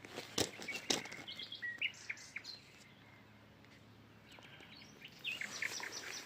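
Small birds chirping in short series of high notes, with two sharp clicks in the first second.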